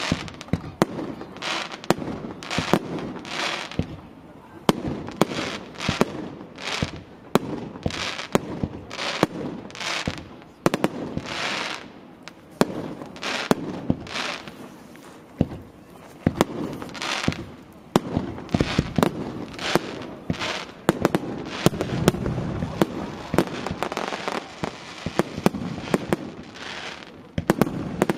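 Fireworks display: aerial shells bursting one after another in quick, irregular succession, sharp bangs each followed by a brief rush of sound.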